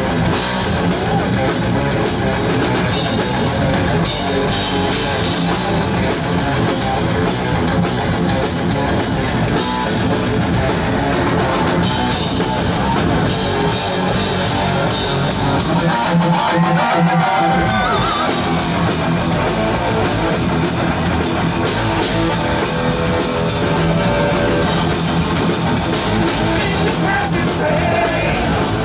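Heavy metal band playing live and loud: distorted electric guitars, bass guitar and a drum kit. About sixteen seconds in the cymbals drop out for a couple of seconds while a guitar line bends and wavers.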